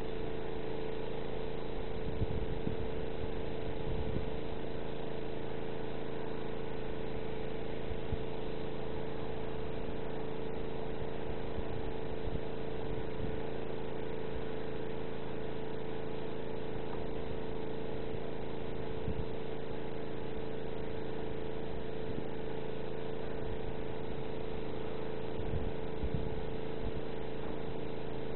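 A steady, unchanging motor hum with a strong mid-pitched tone, and a few soft low thumps now and then.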